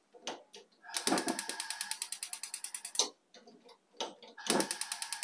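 TGC gas hob's electric igniter clicking rapidly, about a dozen clicks a second, as the burner under a frying pan is being lit. There are two tries: one of about two seconds, then another starting near the end.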